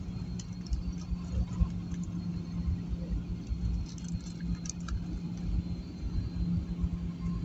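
Airliner cabin noise: a steady low rumble of engines and airflow with a steady hum. Light clicks and rattles come and go, with a cluster of them about four seconds in.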